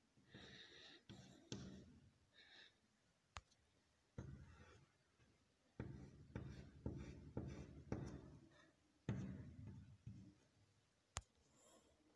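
Chalk on a blackboard: a run of short, faint scratching strokes with light taps, thickest in the middle, and a couple of sharp clicks.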